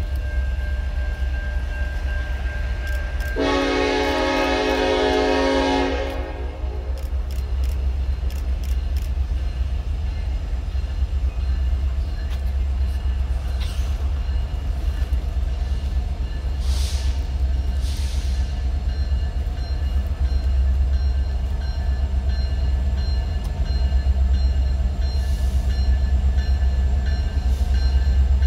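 CN freight train's diesel locomotive horn giving one chord blast of about two and a half seconds, a few seconds in, over a steady low rumble as the train approaches.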